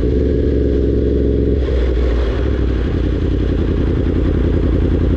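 Yamaha R1's crossplane inline-four engine running steadily and loud, its note shifting slightly about a second and a half in.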